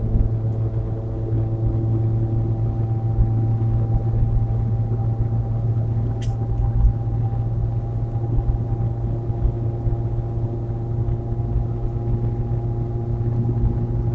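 In-cabin drone of a 2016 Nissan Versa's 1.6-litre four-cylinder cruising steadily at highway speed: a strong, even low hum with several steady engine tones over road noise. A single click sounds about six seconds in.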